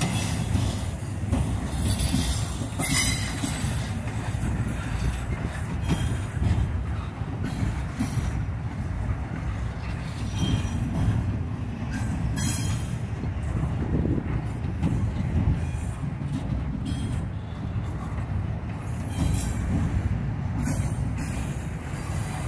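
Double-stack container well cars of a freight train rolling past: a steady rumble of steel wheels on rail, with repeated knocks and clacks as the trucks pass, and brief thin squeals from the wheels now and then.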